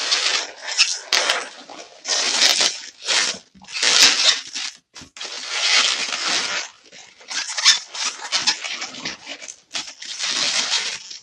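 Latex 260 modelling balloons squeaking and rubbing against each other and against the hands as they are twisted into bubbles and locked together, in a dozen or so short bursts.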